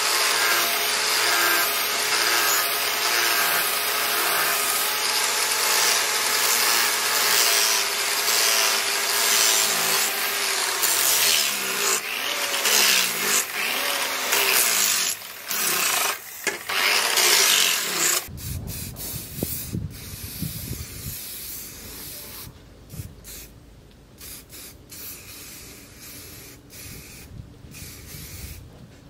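Electric angle grinder running with its disc against a steel machete blade, a steady grinding noise with a motor whine that breaks off briefly a few times after about 15 seconds. After about 18 seconds it gives way to a much quieter stretch, and near the end an aerosol spray can hisses in short bursts.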